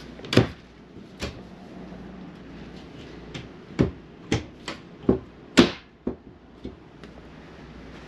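Overhead wall cabinet doors being opened and shut by hand: a string of short, sharp clicks and knocks from the doors and their catches, about nine in all, the loudest a little past halfway.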